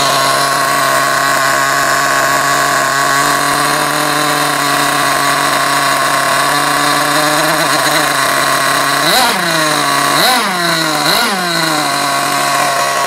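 Small JET .28 (4 cc) glow-fuel engine of an RC nitro car idling steadily on a rich break-in setting, then blipped three quick times near the end, its pitch rising and falling back each time.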